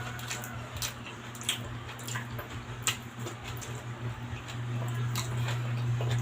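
Close-miked eating sounds: wet chewing and mouth smacks of pork and sour soup, a scatter of sharp clicks, over a steady low hum.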